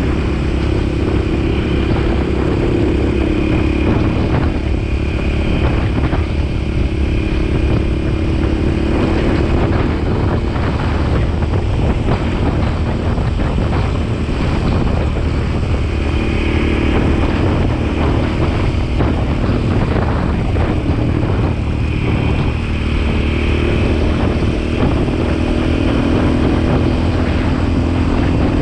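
Motorcycle riding at road speed, its engine running steadily, heavily buffeted by wind noise on the microphone.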